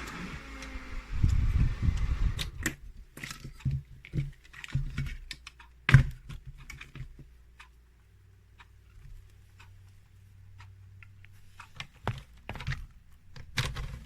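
Irregular clicks and knocks of objects being handled, with low rumbling handling noise in the first couple of seconds and a faint low hum for a few seconds past the middle.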